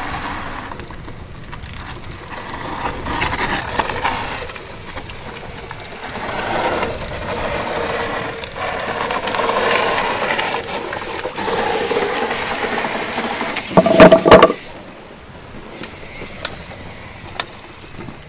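Mountain bike rolling down bare rock slabs, with tyre noise on the rock and a metallic rattle of chain and drivetrain. About 14 seconds in comes a brief, loud squeal.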